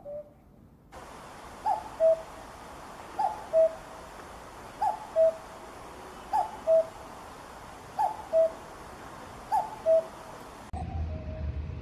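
Common cuckoo singing its two-note "cuck-oo", a higher note dropping to a lower one, repeated six times at an even pace about every second and a half over a steady hiss. Near the end the recording cuts to another with a low rumble and a further call.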